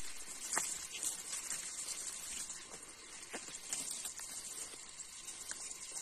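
Tall grass and undergrowth rustling and crackling as people push through it on foot, with scattered small clicks of stems being brushed and bent.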